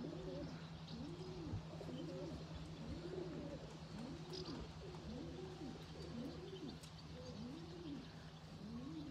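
Domestic pigeons cooing: a run of rising-and-falling coos, about one a second, over a faint steady low hum.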